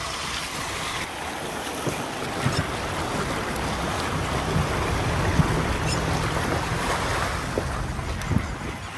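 Open safari vehicle driving along a jungle track, its engine running low under a steady rush of wind on the microphone, with a few short knocks and rattles.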